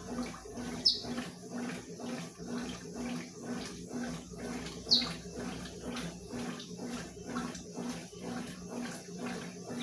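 Consul 12 kg top-loading washing machine agitating in its rinse cycle with a sofa cover in the load. The motor hums in short pulses, about three strokes a second, as the agitator swishes water back and forth. Two sharp, brief squeaks come about a second in and again about five seconds in.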